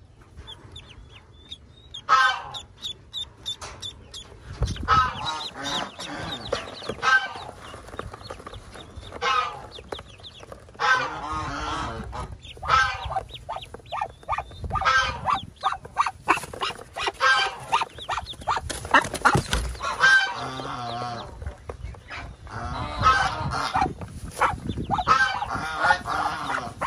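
Farmyard waterfowl giving repeated calls, a new call every second or two, with thin high peeps from newly hatched ducklings in the first few seconds.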